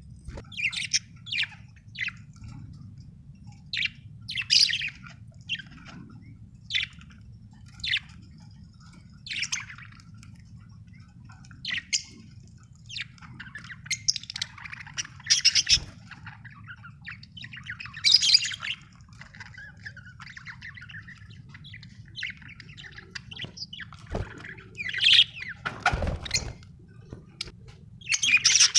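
Budgerigar chirping: short, bright chirps and squawks about once a second, with busier warbling runs around the middle and near the end, over a faint steady low hum.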